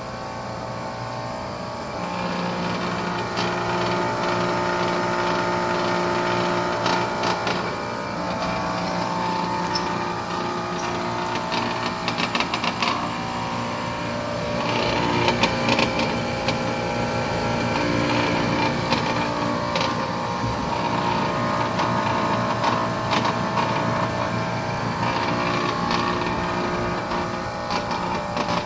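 Trane XR air conditioner unit running with a steady hum and a loud rattling buzz that comes and goes, louder in the middle. The rattle is a solenoid next to the control board vibrating inside the unit, which a zip tie is meant to cure.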